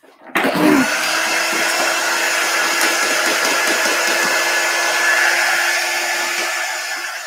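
Handheld craft heat gun switched on and running steadily: a whooshing fan with a steady hum under it. It is blowing hot air to dry chalk paste on a sign, and gets a little quieter near the end.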